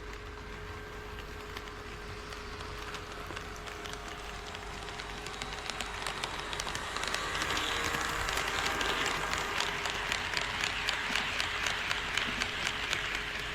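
HO scale model train rolling on KATO Unitrack sectional track and growing louder as it approaches, its wheels clicking over the rail joints at about three clicks a second.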